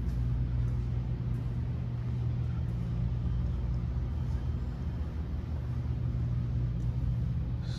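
A steady low mechanical hum, with a few faint clicks and taps over it.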